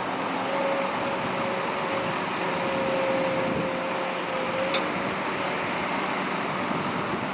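Heavy diesel earthmoving machinery running steadily, a faint whine held over the engine noise, with a single sharp click about two thirds of the way in.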